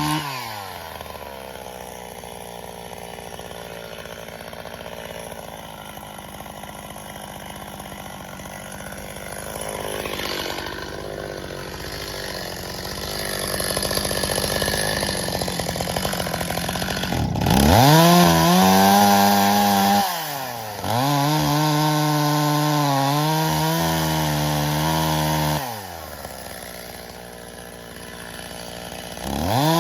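Stihl MS 270 two-stroke chainsaw dropping from full throttle to idle and idling for a long stretch. About two-thirds of the way in it revs up to full speed cutting birch logs, eases off briefly, runs flat out again, then falls back to idle. It revs up once more near the end.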